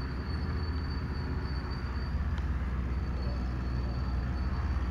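Steady low rumble of outdoor background noise, with a faint thin high whine that drops out and comes back.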